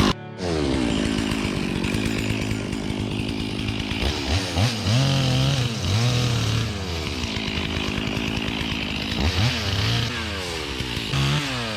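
Stihl MS460 two-stroke chainsaw running after a brief dropout at the very start. From about four seconds in, its engine note repeatedly rises and falls as it is revved and cut into trees.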